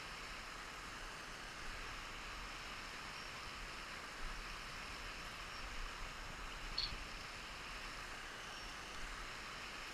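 Quiet, steady outdoor hiss of a hill stream running, with a few faint knocks and a brief high chirp about seven seconds in.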